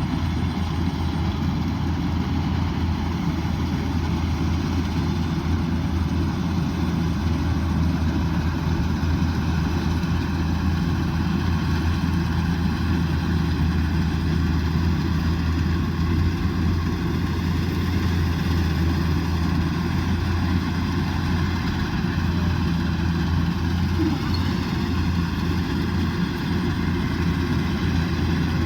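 Kubota DC108X rice combine harvester's diesel engine and machinery running steadily, a constant low drone with a hum and no change in level.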